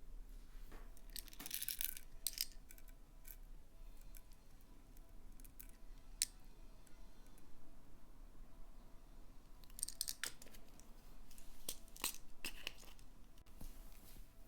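Slime being worked by hand as pigment is mixed in: bursts of sticky crackling and clicking, in two clusters, one about a second and a half in and one from about ten seconds in, with a single sharp click near the middle.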